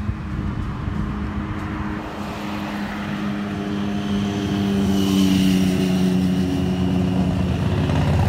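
A car driving past on a road, its engine hum and tyre noise swelling over several seconds and loudest past the middle.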